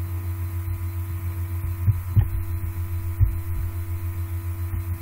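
Steady low electrical hum in the recording, pulsing a few times a second, with a few faint knocks about two and three seconds in.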